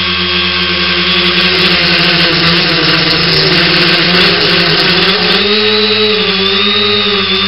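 The three brushless motors and propellers of an X900 tricopter running in flight, a steady whine over rushing noise. The pitch wavers and shifts as the throttle changes, most clearly from about five and a half seconds in.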